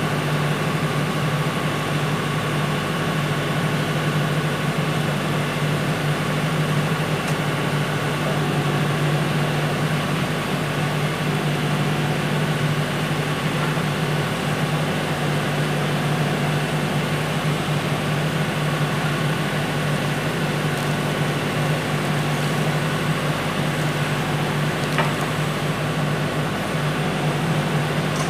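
A steady machine hum with a constant low drone, and one light click near the end.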